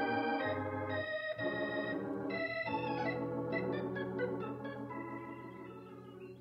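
Organ music bridging two scenes: held chords that change every second or so, fading out near the end.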